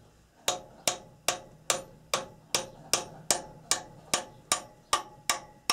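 A hammer tapping lightly and evenly on a large nail as it is driven through the thin wall of a stuck spin-on oil filter, about two or three taps a second. This is punching through the filter so that the nail can be used as a lever to twist it off.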